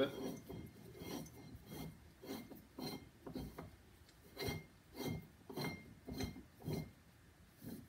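Steel parts of a hydraulic press being worked back and forth by hand, making a rhythmic scraping of metal on metal, about two strokes a second and louder in the second half.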